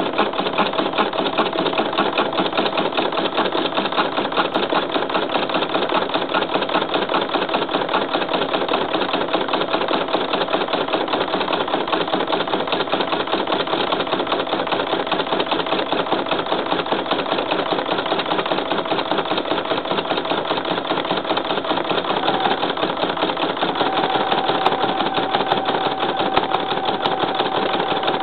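Computerized embroidery machine stitching at speed: a fast, steady clatter of needle strokes, with a steady whine that steps up slightly in pitch late on.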